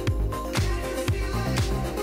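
Background music with a steady beat, a bass drum about twice a second under sustained pitched notes.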